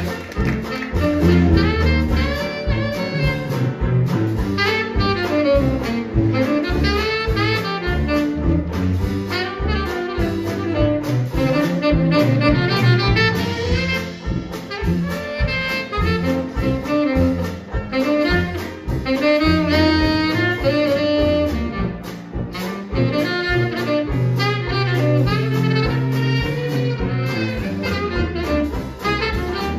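Live Dixieland jazz band playing in a steady two-beat swing, with a saxophone carrying the lead over tuba bass notes, banjo strumming, piano and drums.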